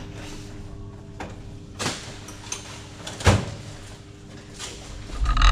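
A few short knocks and clunks of metal parts and tools being handled, the loudest about three seconds in, over a steady hum, with a heavier low thud near the end.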